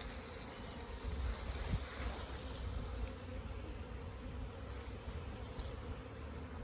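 A mass of honeybees buzzing steadily around their opened colony, a constant hum of many wings over a low rumble; the bees are agitated at having their brood comb cut out.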